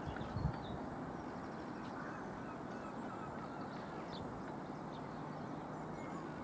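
Steady outdoor background noise with scattered faint bird calls, and a low thump about half a second in.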